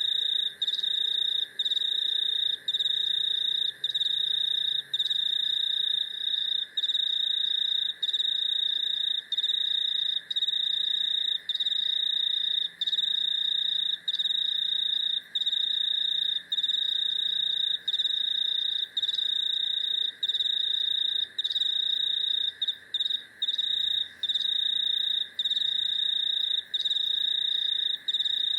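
Chorus of crickets and cicadas. One loud high trill runs on, broken by brief gaps about every second and a quarter, over a steady lower buzzing drone.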